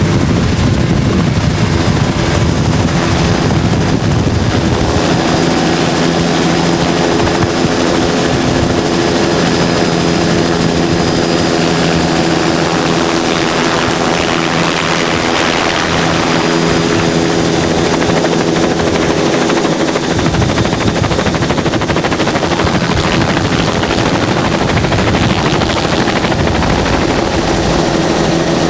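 An engine running steadily at a constant speed under a loud rushing noise.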